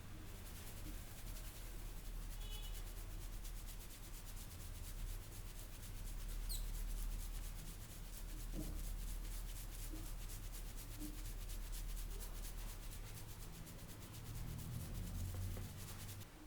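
Hands vigorously rubbing and scratching through hair and scalp in a head massage: a fast, steady, scratchy rubbing of many quick strokes.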